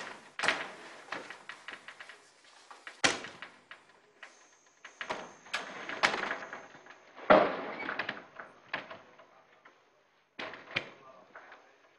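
Irregular knocks and clatters, the loudest about three seconds in and again about seven seconds in, with a faint high steady whine from about four seconds in.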